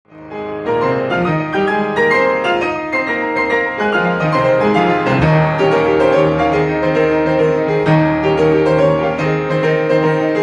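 Solo piano music: a stream of quick notes moving over held bass notes.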